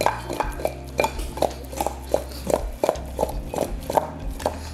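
Raw seasoned chicken drumsticks tossed by hand in a glass mixing bowl: a steady run of knocks and clatters, about three a second, as the pieces hit the glass and each other.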